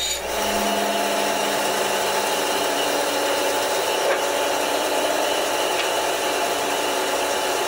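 Wen tabletop band saw running, its narrow 1/8-inch scroll blade cutting a curved shape in a scrap of wood; a steady motor hum with saw noise.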